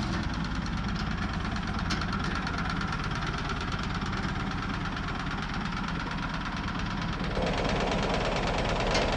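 Workshop machinery running steadily with a fast, even knocking pulse. About seven seconds in, a louder rasping sound joins it.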